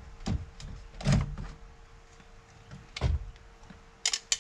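Handling noise from a replacement door speaker and its wiring being worked against a pickup's bare inner rear door: three dull knocks, the loudest about a second in, then a few sharp clicks near the end.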